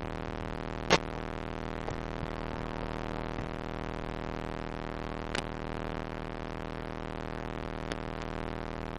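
Steady buzzing hum made of many evenly spaced tones, with the motors of the landed FPV quadcopter stopped. Sharp knocks about a second in and about five seconds in, and a lighter one near the end, as the quadcopter is handled and picked up.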